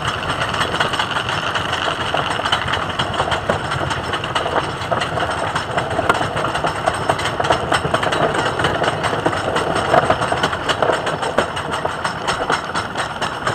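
The chain lift of the Racer 75 wooden roller coaster hauling the train up the lift hill: a steady, rapid clatter of chain and ratchet clicks.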